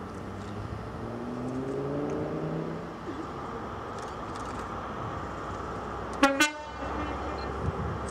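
A British Rail Class 43 HST power car's MTU diesel engine running as the train approaches, its note rising over the first few seconds, then a quick double toot on the train's horn about six seconds in.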